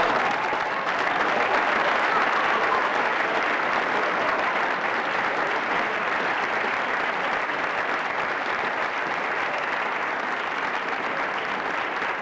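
Audience applause: dense, steady clapping that starts abruptly and eases off slightly toward the end.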